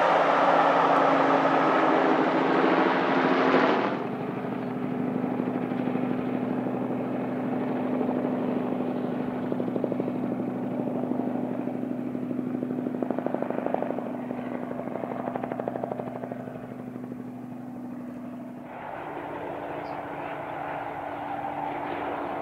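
Steam-hauled train of passenger coaches passing close by, loud for the first few seconds. It cuts abruptly to the train heard further off as it runs away, with a steady low hum underneath.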